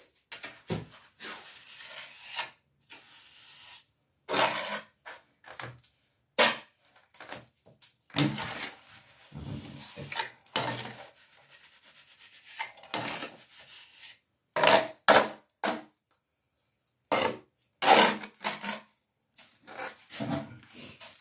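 Trowel scraping through a 4-to-1 sand-and-cement mortar in a plastic tub and spreading it onto a brick wall as parging, in short irregular strokes with brief pauses.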